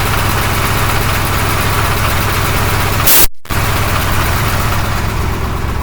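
KamAZ truck engine running at raised revs. About three seconds in comes one sharp blast of air as the air dryer sneezes, dumping air through its purge valve: a sign that the thin hydraulic hose after the dryer cannot pass the compressor's output at high revs.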